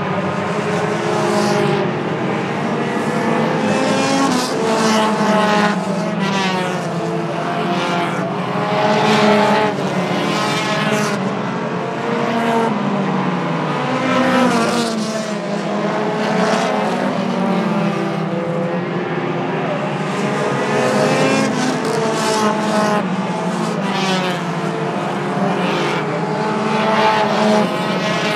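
A pack of pure stock race cars running laps on a short oval, many engines at once, each rising and falling in pitch as the cars accelerate off the turns and pass by, with a little tyre squeal.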